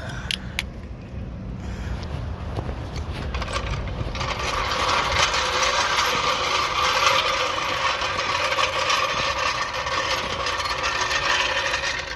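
Steady mechanical rattling, building over the first few seconds and then running on evenly for about eight seconds.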